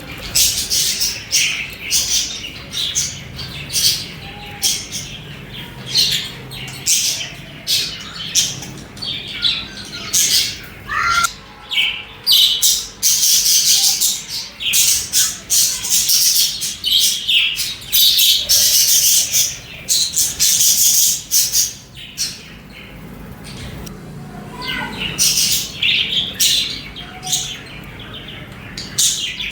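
Budgerigars chirping and chattering in rapid, high-pitched bursts, with a brief lull about three-quarters of the way in.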